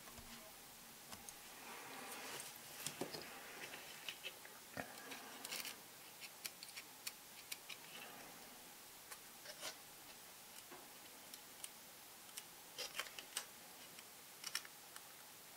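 Faint, irregular clicks and taps of small hobby tools working a photo-etched metal handrail fret, with a few clusters of sharper clicks.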